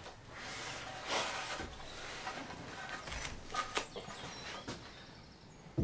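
A bird giving a short rising chirp near the end, with a brief rustle about a second in and a few sharp knocks just past the middle.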